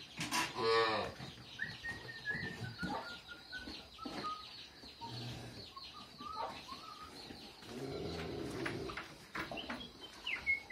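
A cow moos once, briefly, about half a second in. Small birds chirp in short falling notes behind it.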